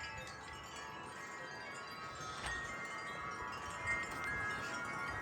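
Wind chimes ringing in the wind: many overlapping tones hang on, and new strikes come in about halfway through and again near the end.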